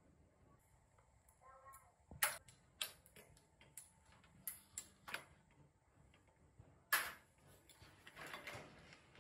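Scattered sharp clicks and knocks of hard objects being handled, the loudest about two seconds in and again about seven seconds in, followed by a short scraping sound near the end.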